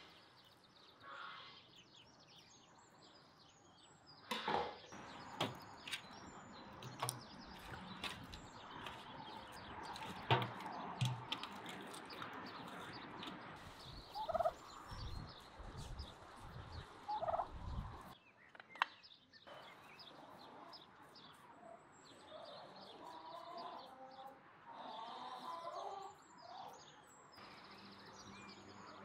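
Domestic turkeys calling, with a burst of rapid gobbling a little past two-thirds of the way through. Before that, a series of sharp knife knocks on a wooden cutting board.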